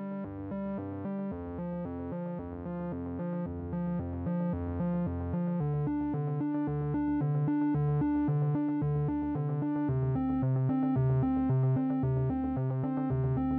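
Synthesizer background music playing quick, evenly paced notes over a lower bass line, slowly growing louder.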